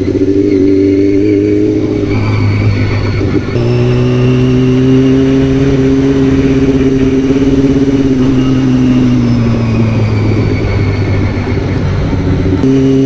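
Yamaha R6 sport bike's inline-four engine running under way at steady revs; the engine note steps to a new pitch about three and a half seconds in, falls slowly around ten seconds in, and changes again near the end.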